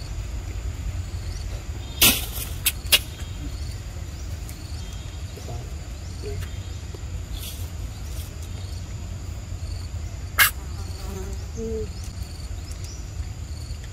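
Insects shrilling in a high steady tone over a low steady rumble, broken by sharp clicks: three close together about two seconds in and a louder one about ten seconds in.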